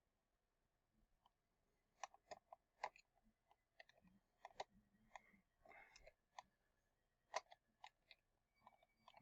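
Scattered light clicks and taps of small plastic parts being handled, the sound of hands working on an animatronic singing toy dog's mouth mechanism.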